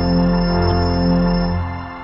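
Music: a held chord over a deep bass note that starts to fade out near the end.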